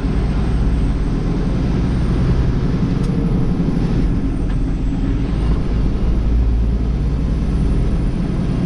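Semi truck's engine and road noise inside the cab while driving: a steady low rumble.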